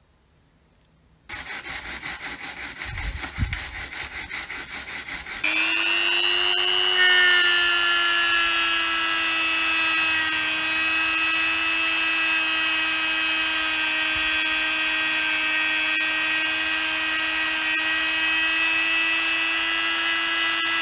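Small electric power tool running: a rapid pulsing buzz starts about a second in, then a few seconds later the motor rises to a steady high whine that dips slightly in pitch and holds.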